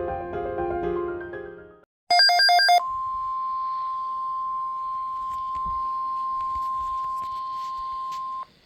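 Electronic keyboard music stops just under two seconds in. A short, loud burst of pulsed electronic tones follows, then the NOAA Weather Radio warning alarm tone: one steady high tone near 1 kHz held for about five and a half seconds before it cuts off, signalling that an alert message follows.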